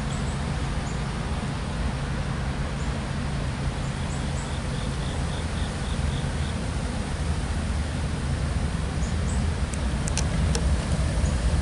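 Distant approaching CSX diesel locomotive's engine, a low steady drone that grows slowly louder as it nears.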